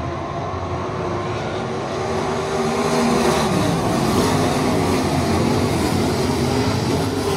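410 sprint car engines running, their pitch rising and falling, growing louder over the first few seconds and then holding steady.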